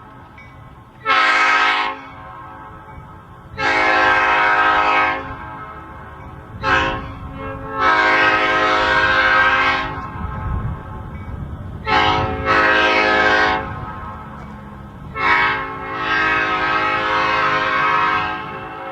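A five-chime locomotive air horn is blown in a series of blasts, each short toot followed by a longer held blast of one and a half to two and a half seconds, four times over.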